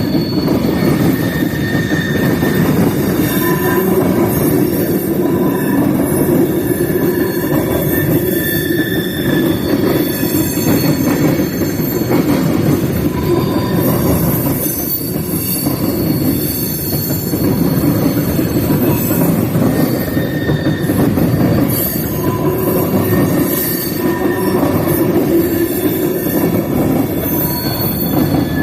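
Freight train cars rolling past with a steady rumble, steel wheels squealing in high, wavering tones that come and go every few seconds.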